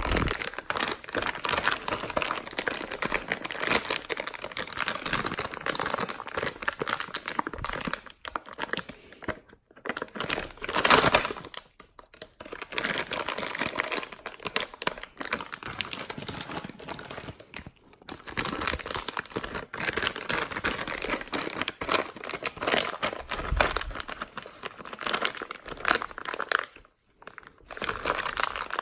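Packaging of a new RC wheelie bar crinkling and tearing as it is opened by hand, in irregular bursts with a few short pauses and a louder rip about eleven seconds in.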